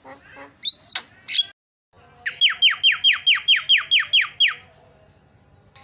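Javan myna calls: a few whistled glides and clicks, then, after a brief cut to dead silence, a fast series of about eleven downward-sweeping notes, roughly five a second.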